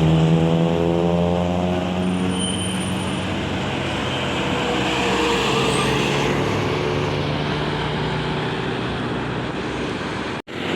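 Large diesel bus engine running close by amid road traffic, its pitch drifting slowly as it passes. The sound drops out sharply for an instant near the end.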